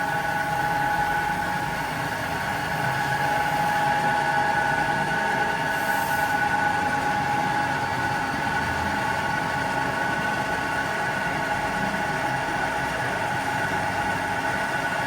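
Steady whine of running workshop machinery, several held tones over a noisy hum, with no hammer blows.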